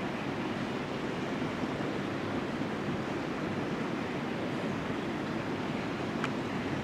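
Steady, even rushing noise in a long railway tunnel as a train approaches from far off; the train's own running sound is barely audible.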